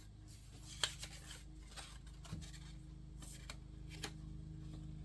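Paper craft pieces being handled and laid down, faint rustles and light taps several times over a steady low hum.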